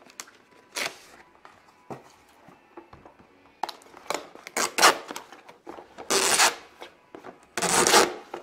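Cardboard and plastic retail packaging being handled: a cardboard sleeve rubbing and scraping as it slides off the box, in irregular rustling bursts. The loudest bursts come about six seconds in and near the end.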